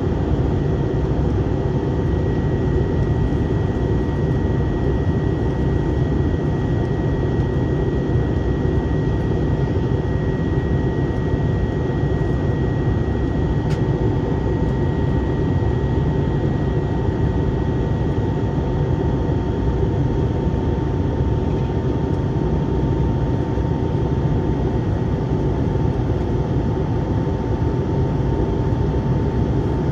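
Steady roar of an Airbus A321's engines and airflow inside the passenger cabin, with a faint high whine held steady throughout.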